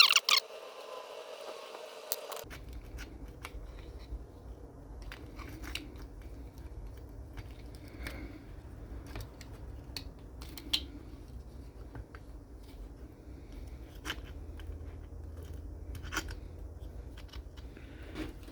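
Scattered light clicks and taps of a screwdriver working small screws out of the spur gear cover of an Arrma Senton BLX 3S RC truck, with small parts being handled. A low steady rumble underlies it from about two seconds in.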